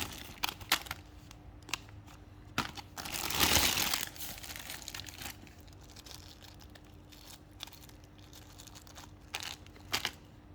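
Packaging being handled: crinkling and rustling in short crackles, with one louder, longer tearing or crumpling rush about three seconds in.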